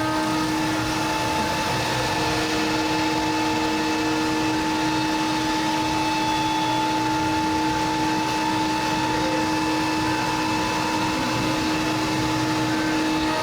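Workshop machinery at a CNC router set-up running steadily: an even whine at two fixed pitches over a constant hiss.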